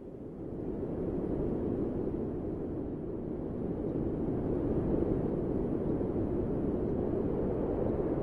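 A steady low rumbling noise with no distinct tones, swelling over the first second and then holding.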